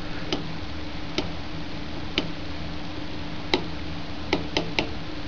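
Oscilloscope control knob clicking through its detents as the time-per-division setting is changed: single sharp clicks at irregular intervals, three in quick succession near the end. A steady low hum runs underneath.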